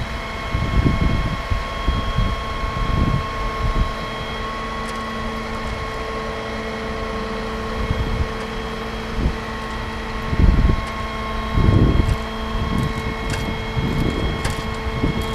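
Hydraulic drive of a fire department aerial ladder platform running as the boom slews, giving a steady whine made of several constant tones. Irregular gusts of wind buffet the microphone.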